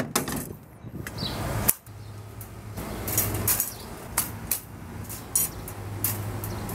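Wire live-trap cage rattling and clicking as its door latch is lifted, pushed and pulled by hand: a string of sharp metal clinks over a steady low hum.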